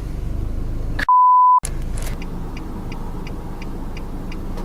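A censor bleep: a half-second pure beep replacing a word about a second in, over a steady low rumble. From about two seconds in, faint rapid ticking at about five ticks a second.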